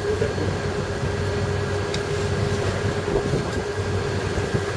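Steady drone of a tuna purse seiner's engines and machinery heard on board: a low hum under a constant mid-pitched tone and a thin higher whine, with a couple of faint clicks.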